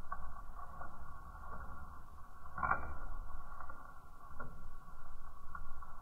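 Fire in a wood-stove firebox burning paper against logs: a steady, muffled low rumble of flames with scattered crackles, the loudest about two and a half seconds in.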